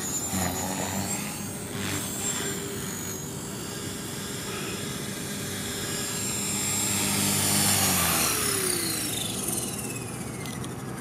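Radio-controlled model helicopter flying, its rotor and motor whine swelling as it comes down to land. About eight seconds in, the pitch starts falling steadily as the rotor spins down on the grass.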